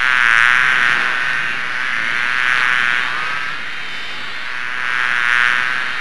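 Fly buzzing in flight, a droning whine that swells and fades three times as it passes close, loudest about half a second in, near the middle and near the end.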